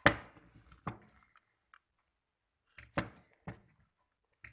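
A few sharp knocks and clunks of hard parts being handled on a sewing machine under repair: the loudest right at the start, another about a second in, and two more around three seconds in.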